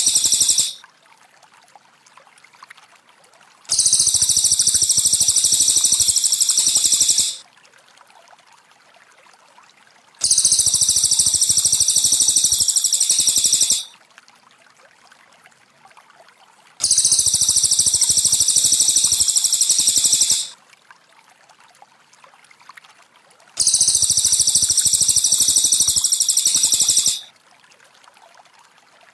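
Cililin bird song played as a looped training recording: a very high-pitched, trilling bout about three and a half seconds long, repeated four times at even intervals. Faint trickling water fills the pauses.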